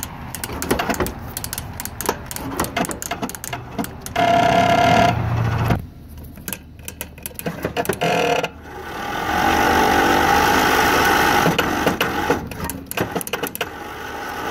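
Riding lawn mower's electric starter cranking the engine on a portable jump starter, a whirring with several stacked tones, in two tries: a short one about four seconds in, and a longer one that builds up from about eight and a half seconds. The engine does not start. Clicks and handling knocks come before the first try.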